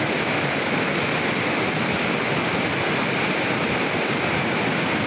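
A river in flood rushing steadily: fast, churning floodwater making a dense, even roar of water noise with no breaks.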